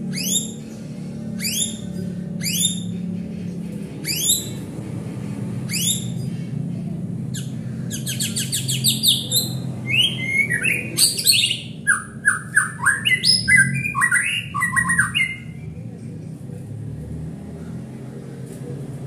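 White-rumped shama singing: a string of short sweeping whistles about a second apart, then a fast trill and a varied, jumping warbling phrase that stops a few seconds before the end. A steady low hum runs underneath.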